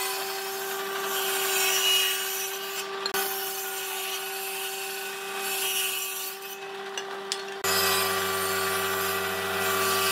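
Table saw of a combination woodworking machine running at a steady speed and ripping thin strips from wooden boards, the blade's cutting noise over a steady motor hum. About eight seconds in, the sound changes abruptly to a deeper hum as the saw runs on.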